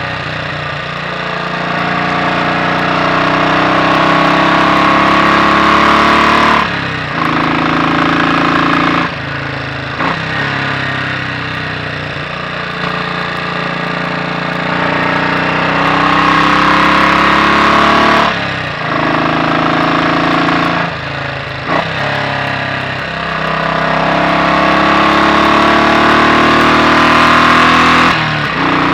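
Royal Enfield Bullet 500 single-cylinder four-stroke engine, its inlet cam retarded by one tooth, pulling on the road: the engine note climbs in pitch in repeated runs, each broken by a brief drop, about five times.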